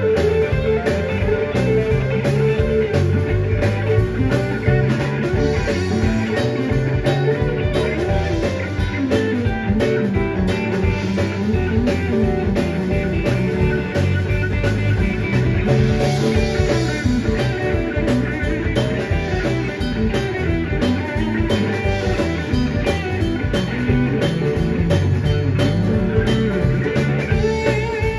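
Live blues band playing an instrumental passage: electric guitar over electric bass and a drum kit.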